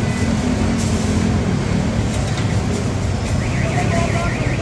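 A steady low rumbling din, with scattered light clinks of metal cooking utensils on woks and a grill.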